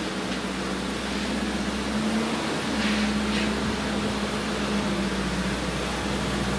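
Steady mechanical hum with a constant hiss, like a running fan or machine, with two faint short sounds about three seconds in.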